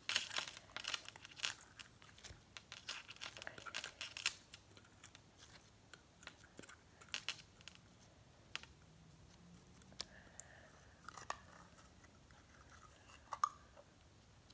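Blue glitter slime being squished and pulled out of its container, making faint wet crackling and popping clicks, thick for the first few seconds and then only now and then.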